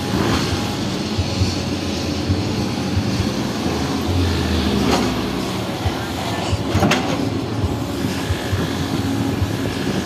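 XCMG crawler excavator's diesel engine running steadily, with a few sharp knocks about five and seven seconds in.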